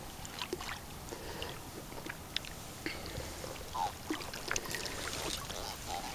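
Faint light splashing and scattered small ticks of water as a small channel catfish on a fly line is drawn in through rocky shallows.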